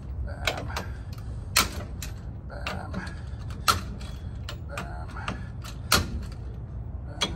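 A socket wrench and screwdriver working the lug nuts on a bare wheel hub: small metal clicks and clinks, with four sharper metallic clicks about every two seconds.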